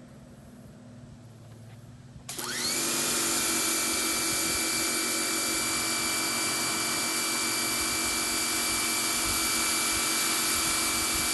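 Electric pressure washer kicking on about two seconds in as the trigger is pulled. The motor and pump whine up to speed within half a second, then run steadily under the hiss of the water jet from a 25-degree green nozzle.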